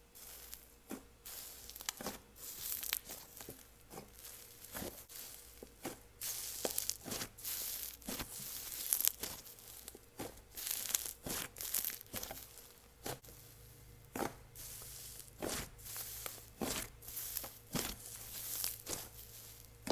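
Inflated butter slime being squeezed by hand, giving an irregular run of sizzling, crackling pops.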